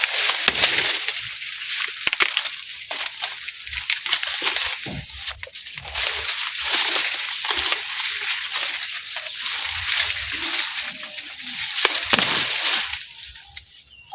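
Dry plant leaves and stalks rustling and crackling, with many irregular sharp snaps and a few dull thuds.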